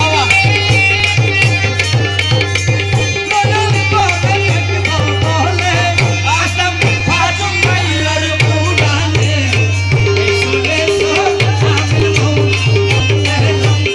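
Live Bengali devotional folk music (Maijbhandari bicched gaan): a tabla plays a steady, driving rhythm under a harmonium melody.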